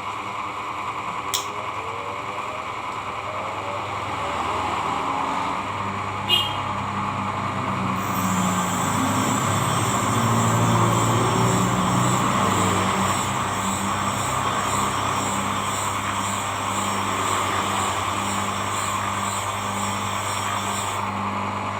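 Electric blade-sharpening machine with a new rotating disc: two sharp clicks, then the motor hum builds and runs steadily. From about eight seconds a fine, evenly repeating hiss of a blade test-piece being rubbed on the oiled disc joins it.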